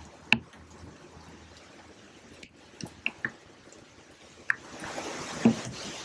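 Rain falling on a river, a steady hiss, with about six sharp drips plinking close by at uneven intervals. The hiss swells near the end.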